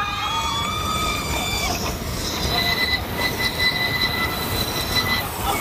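Shrill metal-on-metal squeal of an amusement ride's steel wheels running along its track, held on several steady pitches. About two seconds in it shifts to a higher squeal, then breaks off shortly before the end. A steady running rumble lies underneath.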